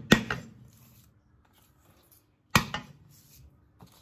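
Flat of a Chinese cleaver smacking down on unpeeled garlic cloves against a wooden cutting board to crush them. There are two sharp blows, one just after the start and one about two and a half seconds in, each followed by a lighter knock.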